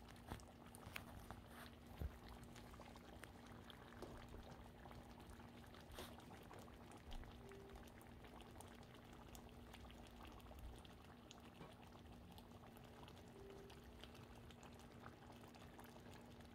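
Chicken stew in tomato sauce simmering in a pan, faint bubbling with many small pops, over a steady low hum.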